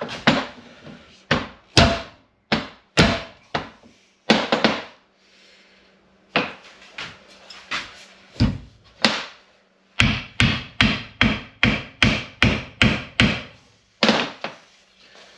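Sharp wooden knocks as an axe is tapped down to seat its head and the ash wedge in the maple haft for a tight fit. Single knocks come a second or so apart at first, then a quick run of about a dozen taps from about ten seconds in.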